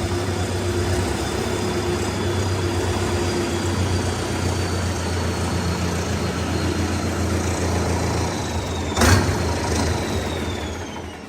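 Sonalika RX 60 tractor's diesel engine running steadily at low speed, with one sharp knock about nine seconds in. The engine then winds down and shuts off near the end, its faint whine falling away.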